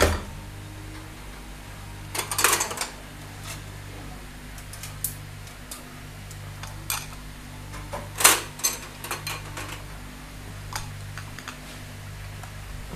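Scattered clinks and knocks of dishes and utensils being handled, the loudest about eight seconds in, over a steady low hum.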